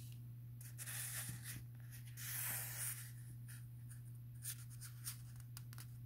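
Soft rustling and a few light clicks of a paperback book's pages being handled, over a steady low hum.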